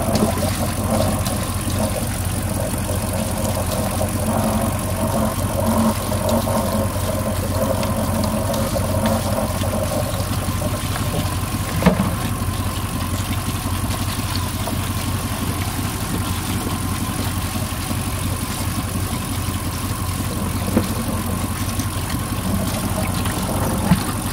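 MasterCraft MCX 350 V8 inboard idling steadily while it draws antifreeze from buckets through its cooling system during winterizing. One sharp knock about halfway through.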